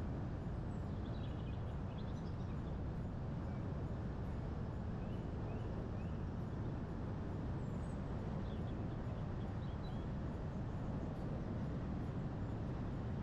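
Steady low rumble of wind and road noise, with faint bird chirps a few times over it.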